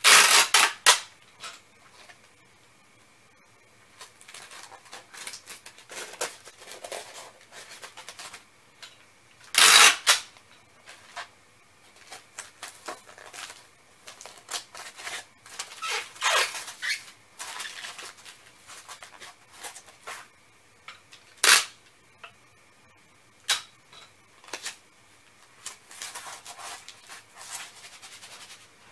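Hands handling packing materials: rustling and crinkling of paper and plastic, broken by a few loud, sudden crackles or rips lasting up to about half a second, at the start, about ten seconds in and around sixteen seconds, and one short sharp snap around twenty-one seconds.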